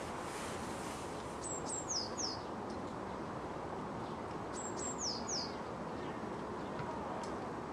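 A small songbird repeating the same short high phrase twice: two brief level notes, then two quick falling whistles. Under it runs a steady hum of distant city noise.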